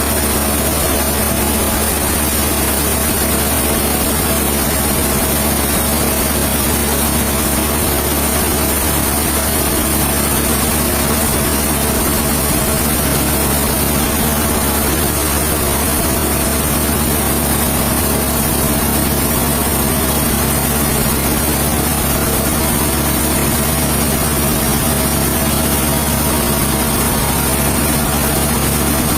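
A heavy engine running steadily at an even speed, with no change in pitch and no cutting or impacts.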